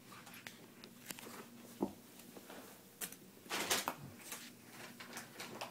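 Kittens playing with a foil ball on carpet: scattered soft taps and rustles, a short thump a little under two seconds in, and a louder rustling scuffle about three and a half seconds in as a kitten pounces.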